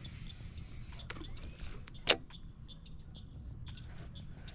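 Faint steady hum of a bass boat's bow-mounted electric trolling motor, with one sharp click about two seconds in.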